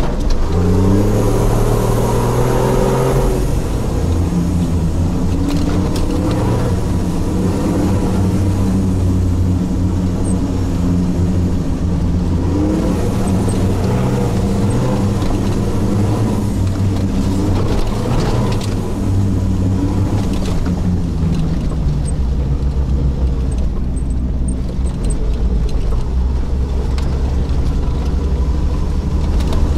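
Toyota Land Cruiser 80 engine heard from inside the cabin while driving, its revs rising and falling, with occasional knocks.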